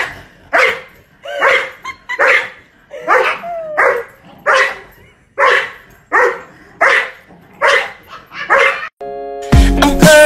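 Dogs barking in a steady series, about a dozen barks, roughly one every three-quarters of a second. In the last second it cuts to music with a beat.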